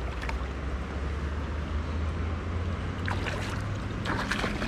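Rushing creek water over a low rumble of wind on the microphone, with a hooked trout splashing at the surface near the end.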